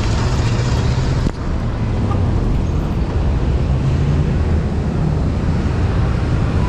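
Street traffic with wind rumbling on the microphone, a steady loud roar with a short break about a second in.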